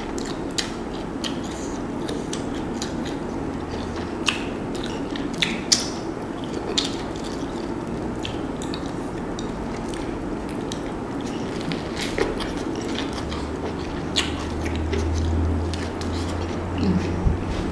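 Close-up eating sounds of a seafood boil eaten by hand: chewing and lip smacks, with sharp wet clicks scattered through. A low hum swells for a couple of seconds near the end.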